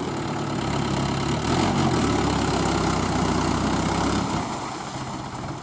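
Mahindra 575 DI tractor's diesel engine running as it pulls through flooded paddy mud on cage wheels. It grows louder about a second and a half in and drops away about four seconds in.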